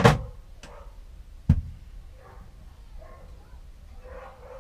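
Two sharp knocks, one right at the start and one about one and a half seconds in with a dull thud under it, then faint handling noise as the wire with its freshly crimped spade connector is held and tugged.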